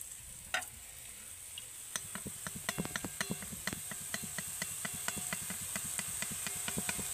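Drops of gram-flour (besan) batter falling through a perforated ladle into hot oil in a wok, sizzling and crackling as they fry into boondi. The crackling thickens from about two seconds in as more drops hit the oil.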